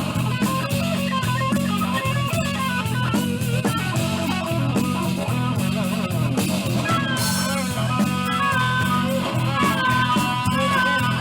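Blues-rock band playing live: a guitar lead with bent, wavering notes over a steady bass line and drum kit, with a cymbal crash about seven seconds in.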